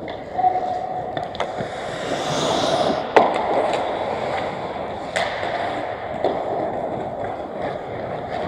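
Pickup ice hockey: skate blades scraping across the ice, with several sharp clacks of sticks and puck, the loudest about three seconds in.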